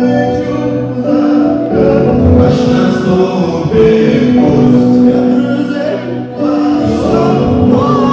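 Live band music with several voices singing sustained notes over it.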